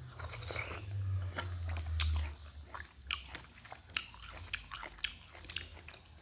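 Close-up eating sounds: crisp bites and chewing of asinan buah, Indonesian pickled fruit, with sharp crunches scattered throughout. A low rumble is present for the first two seconds or so.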